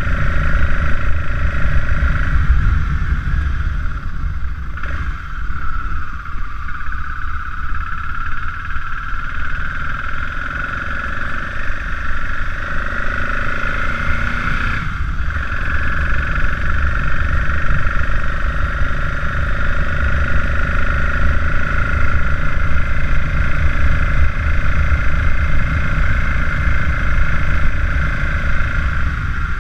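BMW R850GS boxer-twin engine running while the motorcycle is ridden, under a heavy low rumble of wind on the microphone. The engine note changes about 5 and 15 seconds in, with a short rise just before the second change.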